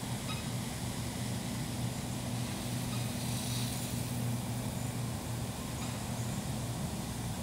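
Steady background rumble of road traffic with a constant low hum.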